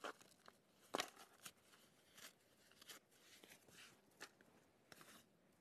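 Sheets of paper being torn into scraps and crumpled by hand, in short rustling bursts, with a sharp tap about a second in.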